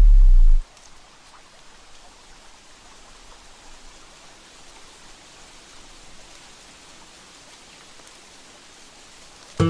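A deep, low music note cuts off about half a second in, leaving a soft, even hiss of outdoor ambience for the rest; plucked guitar notes come in at the very end.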